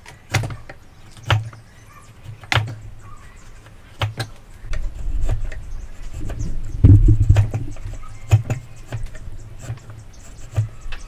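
Steel chisel working hardwood by hand: four sharp knocks in the first four seconds, then a few seconds of dense scraping and crackling as the chisel is pushed and levered through the wood fibres, with scattered clicks toward the end.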